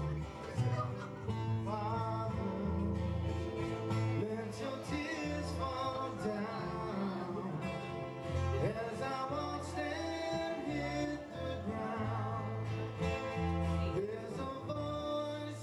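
Live acoustic guitar strummed, with voices singing over it and steady low notes underneath.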